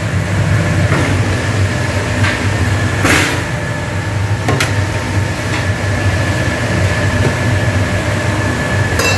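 Steady low drone of commercial kitchen machinery. Over it come a few sharp knocks and a brief swish as a long steel paddle stirs liquid in a large stainless tilting pan.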